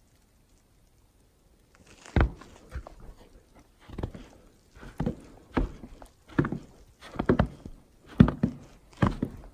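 Footsteps on the snow-covered plank deck of a suspension footbridge, a dull thud with each step. They start about two seconds in and go on at a walking pace, about one to two steps a second.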